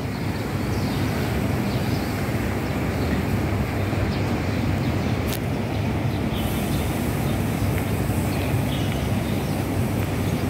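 Steady low rumble of background noise, with a single sharp click about five seconds in.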